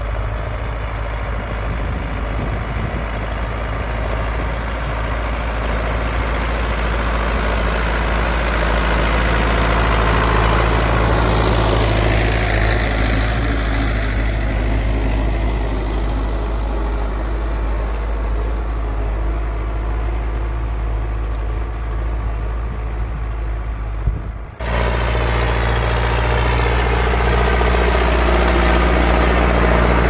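Belarus 820 tractor's four-cylinder diesel engine running steadily under load while pulling a mounted plough through the soil. The sound changes as the tractor draws past around the middle, then breaks off abruptly about three-quarters of the way through and resumes louder and closer.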